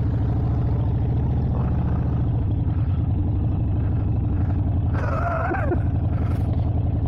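Harley-Davidson XL 883 Iron Sportster's air-cooled 883 cc V-twin idling steadily, its exhaust running at an even pitch.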